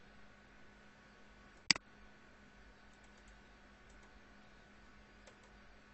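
A computer mouse clicking: one sharp click just under two seconds in, then a few faint ticks, over a faint steady hum.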